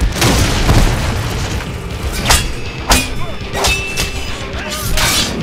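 A heavy crashing boom as a body smashes into a thatched wooden hut, followed by four or five sharp fight hits, one of them with a brief metallic ring, over background film score.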